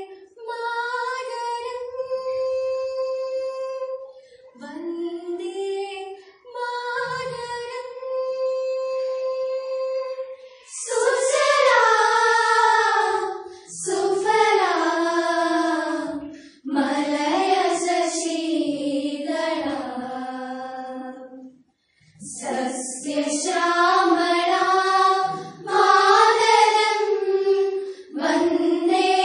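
A group of schoolgirls singing a patriotic song together. Long held notes in the first third, then louder phrases that move more in pitch, with short breath pauses between lines.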